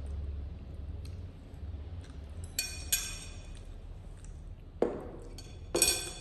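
A few short clinks of a utensil against a dish or glass while a baby monkey is fed, each ringing briefly, the last near the end the loudest.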